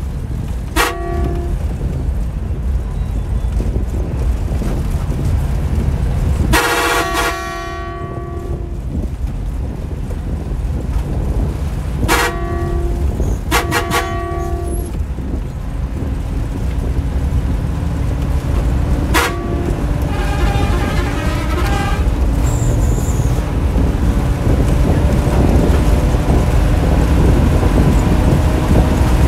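Bus horn blown several times over a steady low engine and road rumble inside the driver's cab: mostly short toots, with one long blast about seven seconds in. Near the end a slowly rising whine comes in under the rumble.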